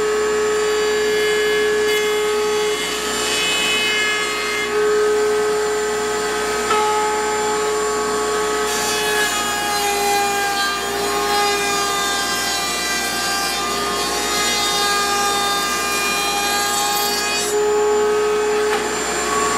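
Table-mounted router running with a steady high whine while its bit cuts the edge of a knotty pine cabinet door fed along the fence. The cutting noise is strongest from about nine seconds in until shortly before the end, and the whine dips slightly in pitch as the bit takes the cut.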